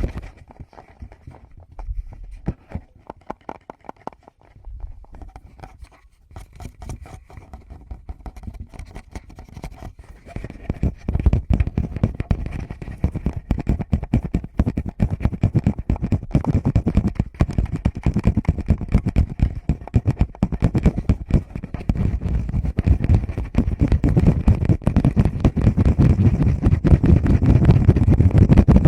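Fingers touching a Tascam microphone directly: rapid soft taps and scratchy rubbing with a heavy low thump. The touches are sparse and quieter for the first ten seconds, then grow denser and louder.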